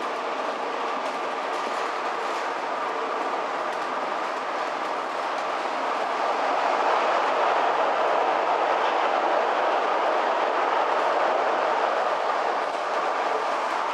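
Hamburg Hochbahn DT3E U-Bahn train running on the rails, with steady wheel-and-track noise and a thin constant whine. It grows louder about six seconds in.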